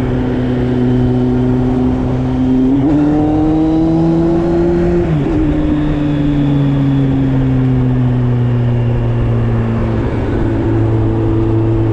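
Kawasaki Z750's inline-four engine, fitted with an Arrow aftermarket exhaust, idling steadily. About three seconds in, the revs rise gently for two seconds, then the throttle is let go and the engine sinks slowly back to idle over the next few seconds.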